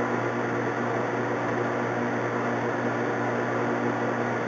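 Metal lathe running at a steady speed, with an even hum, while a single-point boring bar takes a light finishing cut of four thousandths inside the breech end of a rifle barrel, boring the bolt-nose recess.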